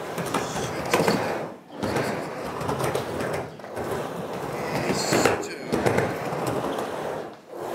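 Skateboard wheels rolling on a mini ramp, a continuous rolling noise with three brief drop-outs.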